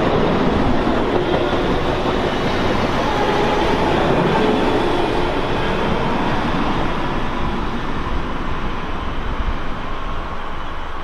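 A train passing on the line, its wheels rolling on the rails in a steady rumble with a faint motor whine, slowly fading in the last few seconds as it moves away.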